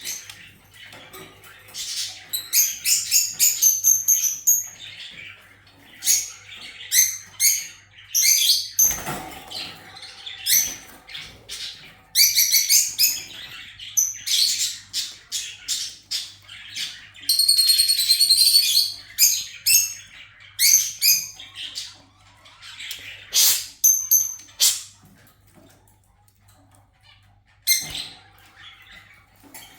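Kakariki parakeets chattering: repeated sharp, high-pitched chirps and calls in quick bursts, with short pauses between.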